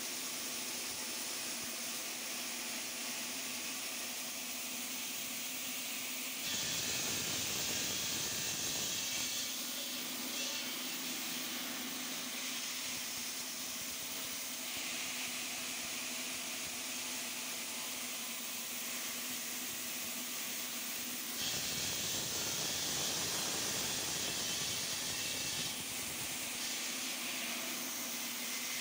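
Stone-cutting saw running in a stone workshop, a steady hum under a constant hiss. Twice, about a quarter of the way in and again about three quarters in, it grows louder and harsher for three to four seconds as the blade cuts through stone.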